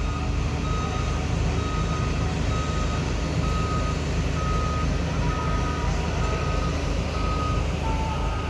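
Reversing alarm on a heavy construction vehicle beeping steadily about once a second, over a diesel engine running. Near the end a second, lower-pitched tone joins in.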